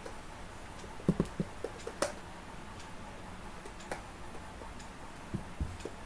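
A screwdriver clicks and scrapes against the screws of a plastic aquarium air pump's casing as they are undone. It gives a scatter of sharp ticks and taps, with a quick cluster about a second in and a few more near the end.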